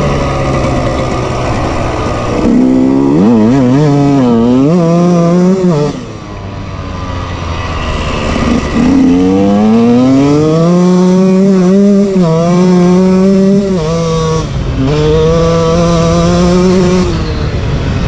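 Two-stroke engine of a KTM 125 EXC enduro bike with a Doma Sixdays exhaust, run hard at the end of running in a new piston: the revs climb in steps and fall back as it shifts up through the gears. The throttle shuts about six seconds in, then the bike accelerates again through several gears and holds a steady high note before backing off near the end.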